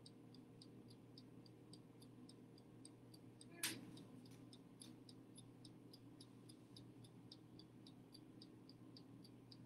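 Toaster oven's timer ticking faintly and evenly, about four ticks a second, over a low steady hum from the oven running on air fry. One sharp click a little under four seconds in.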